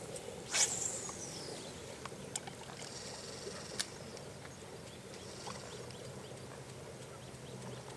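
A fishing cast: a sharp whoosh of braided line paying out from the reel about half a second in, falling in pitch, followed by quiet waterside background with scattered small clicks and a faint steady low hum.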